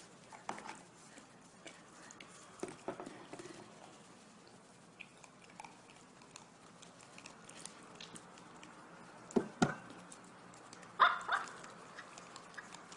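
A dog having its teeth brushed with a toothbrush: quiet, scattered knocks and rubbing, with two sharp clicks about three-quarters of the way through and a louder short burst near the end.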